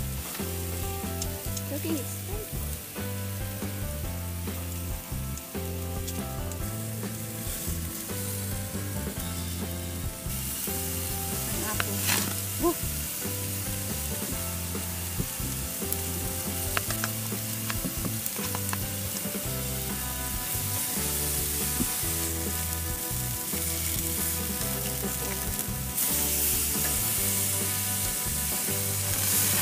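Steaks and pineapple rings sizzling on a gas grill's grate, with a couple of sharp clicks of metal tongs about twelve seconds in. The sizzle grows louder near the end.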